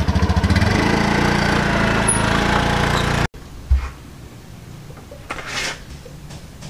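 Motorcycle engine starting with a fast pulsing burst, then running steadily and loudly. It cuts off abruptly about a third of the way in, leaving quiet outdoor background with one low thump soon after.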